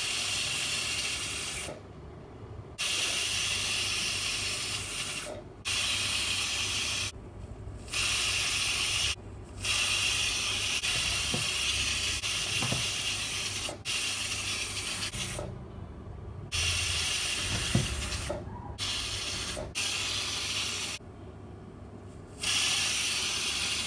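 Steam hissing steadily out of a pressure baker as it cooks on high heat on an induction cooktop. The hiss comes in several stretches that start and stop abruptly, with short quieter gaps between them.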